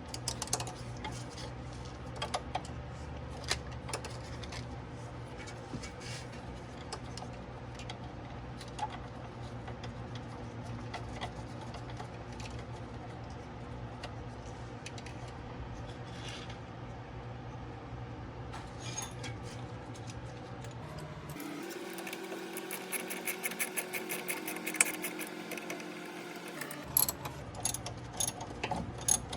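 Scattered light clicks and clinks of small parts being handled and fitted over a steady low hum, then, near the end, rapid evenly spaced ratchet clicking as a hand ratchet wrench starts turning a bolt.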